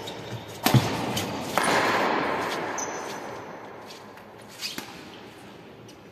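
Doubles badminton rally sounds in a large hall: a heavy thud from a player landing on the wooden court about a second in, then a burst of noise that fades out over about two seconds, with a few lighter racket-and-shuttle clicks later.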